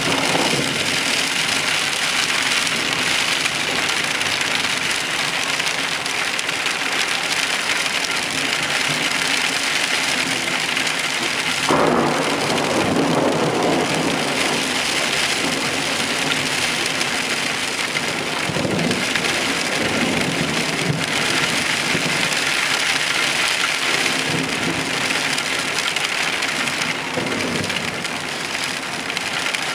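Heavy rain pouring down in a steady hiss. A deeper rumble rises suddenly over it about twelve seconds in, with weaker ones later.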